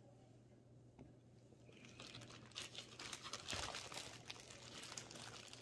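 Plastic bag crinkling and rustling as it is handled and opened, starting about two seconds in and going on irregularly; a single light tap comes just before.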